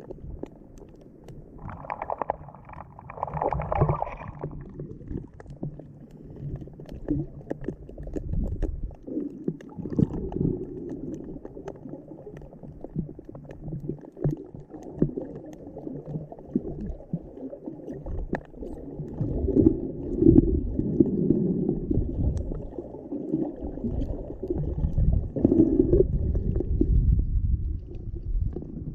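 Muffled rumbling and sloshing of seawater picked up by a GoPro in its waterproof housing, swelling and fading irregularly, with a brief brighter gurgle about two seconds in.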